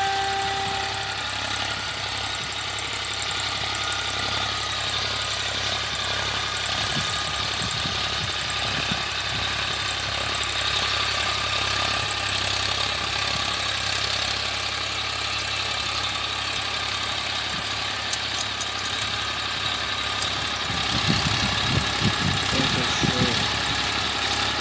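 Massey Ferguson 241 DI tractor's three-cylinder diesel engine running steadily under load while it drives a rotavator tilling the soil.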